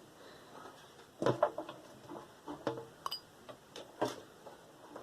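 Computer parts being handled during disassembly: irregular clicks and knocks of plastic and metal. A cluster of louder knocks comes about a second in, and single clicks follow over the next few seconds.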